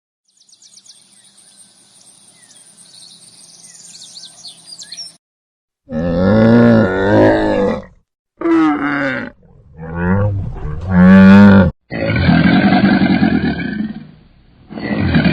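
A large animal roaring: a run of about five loud calls, each a second or two long and bending in pitch, starting about six seconds in after a few seconds of faint background sound.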